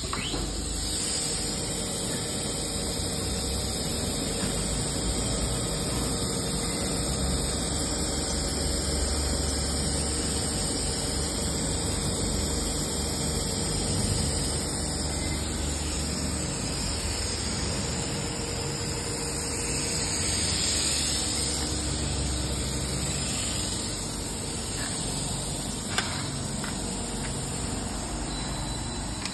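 TDC duct-flange roll-forming machine starting up and running steadily, sheet-steel strip passing through its forming rollers, with a sharp click about 26 seconds in.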